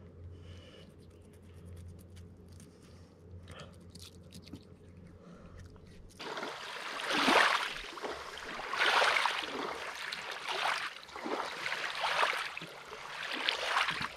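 Fish being cleaned: a run of noisy scraping, wet strokes about every second and a half, starting suddenly about six seconds in after a faint steady low hum.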